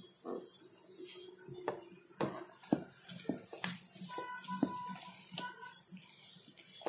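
A hand mixing and kneading soft idli-batter dough with flour in a bowl: irregular soft squishes and knocks of hand and dough against the bowl's side. A few short high tones sound in the background about four to five seconds in.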